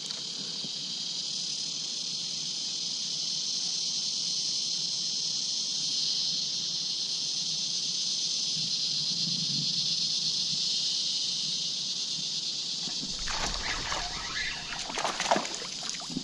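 Steady high-pitched chorus of insects. About three seconds before the end, sudden splashing at the water's surface as a small barramundi strikes the lure.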